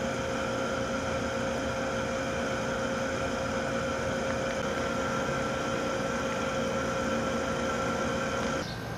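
Steady machine hum with several constant tones, cutting off sharply near the end.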